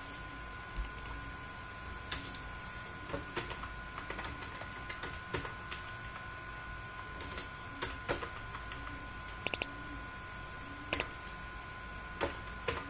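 Scattered keystrokes and clicks from a computer keyboard and mouse during data entry, with two quick bursts of three clicks in a row later on. A faint steady two-note hum runs underneath.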